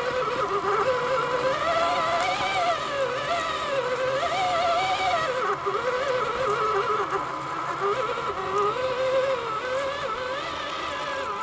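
Electric motor of a TXT radio-controlled truck whining, its pitch rising and falling again and again with the throttle, over a steady high hum.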